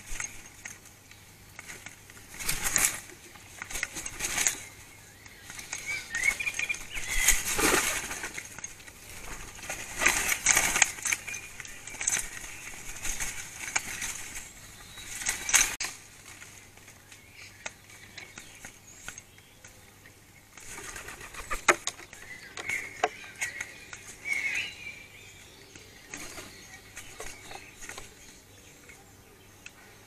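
Jackdaws flapping their wings in repeated rushes as they take off and land, busiest in the first half, with a few short bird calls later on.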